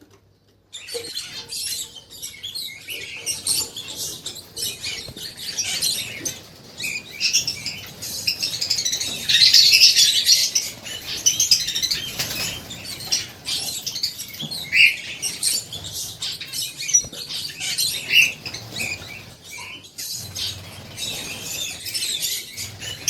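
Many small aviary parrots chirping and chattering at once, a dense overlapping din of high squeaky calls that swells loudest about halfway through.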